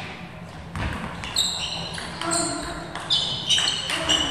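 Table tennis rally: the celluloid ball clicking off rubber-faced bats and the table in quick succession, echoing in a large sports hall, with several short high squeaks in the second half.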